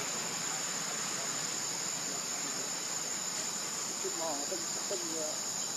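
A steady high-pitched insect chorus, crickets or cicadas, with a few faint short pitched calls about four seconds in.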